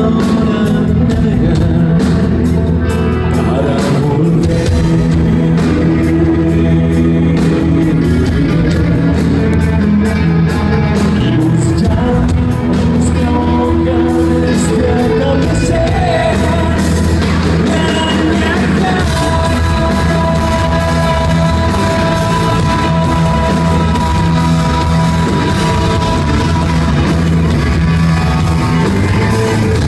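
Live rock band playing loudly with a male lead singer and acoustic guitar, heard from among the audience in a large hall.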